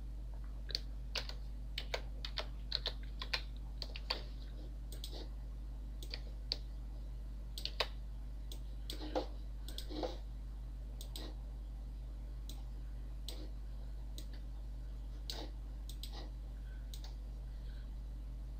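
Keys tapped on a computer keyboard, a quick run of clicks over the first four seconds, then scattered single mouse clicks, over a steady low electrical hum.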